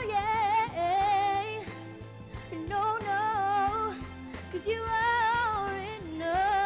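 A young woman singing a pop ballad through a handheld microphone over backing music, in three phrases with held, wavering notes and short breaks between them.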